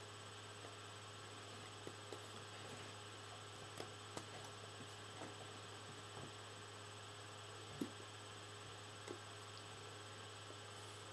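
Low steady electrical hum, like mains hum picked up by the recording, with about half a dozen faint short clicks and taps scattered through it, the sharpest one near the end.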